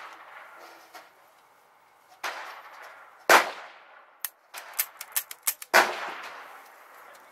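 .38 revolver firing at an outdoor range: three loud shots about a second and two and a half seconds apart, each with an echoing tail, the middle one the loudest. Several fainter sharp cracks come between the second and third shots.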